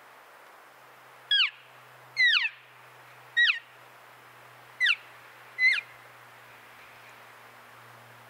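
Five short, loud cow elk mews blown on a hand-held elk call, each a quick squeal falling steeply in pitch, spread over about four and a half seconds, to draw a bull in.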